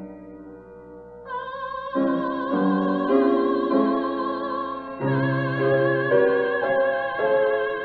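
Classical art song: piano chords, then about a second in a singer enters on a long held note with wide vibrato while the piano chords change beneath it.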